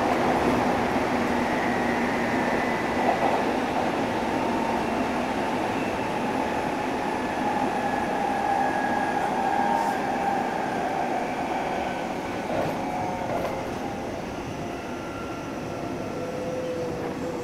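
Hanshin 1000 series electric train running at speed, heard from inside the car: a steady rumble of wheels on rail with a faint whine from its VVVF inverter and traction motors. It gets a little quieter over the last few seconds.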